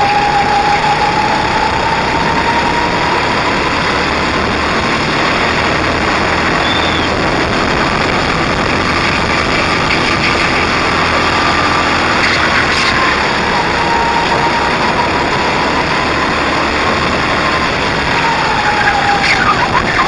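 Racing go-kart engine running at speed, heard from on board, its pitch slowly rising and falling as the kart speeds up and slows through the corners.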